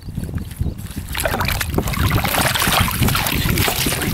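A large hooked rainbow trout splashing and thrashing at the surface at the landing net, starting about a second in, over a low rumble of wind on the microphone.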